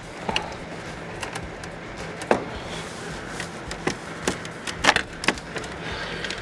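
Plastic front grille of a Mercedes E-Class being worked free of its retaining tabs and lifted out of the bumper cover: a series of irregular sharp plastic clicks and knocks, the loudest pair about five seconds in.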